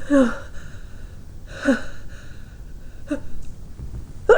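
Pre-sneeze gasps from a person on the verge of sneezing: three short voiced catches of breath, each falling in pitch, about a second and a half apart. A loud sneeze bursts out right at the end.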